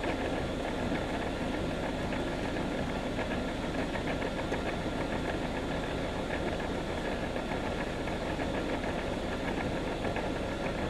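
A motor-driven machine running steadily, with a faint steady whine and a light, regular ticking over its hum.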